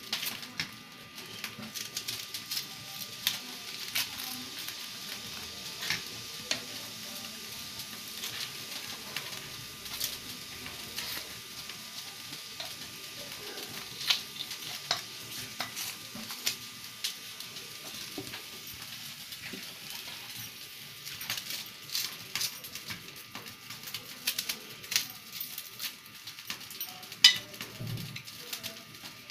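Red onion being peeled with a small kitchen knife: the dry, papery skin crackling and the blade scraping and clicking in irregular little clicks over a faint steady hiss, with one sharper click near the end.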